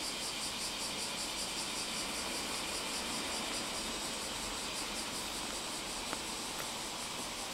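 Steady background hiss with a faint regular pulsing in the high range, and two small clicks about six seconds in.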